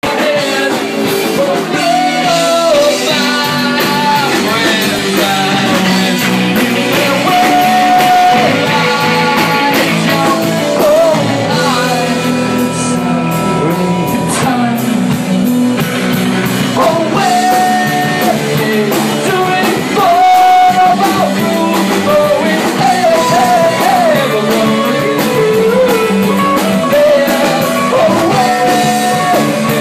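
A live band playing rock music, with a drum kit and a lead melody carrying held notes, continuing without a break.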